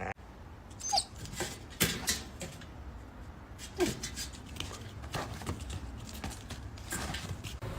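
A dog making a few short vocal sounds, each falling in pitch, amid scattered clicks and knocks.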